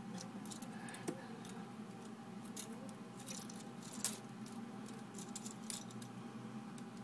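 Plastic parts of a Transformers Bumblebee action figure clicking and rattling lightly as it is folded and twisted by hand during transformation, in scattered short clicks.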